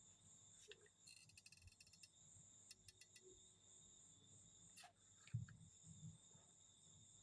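Near silence: a faint steady high-pitched drone, with a few light clicks and taps and a quick run of ticks about a second in.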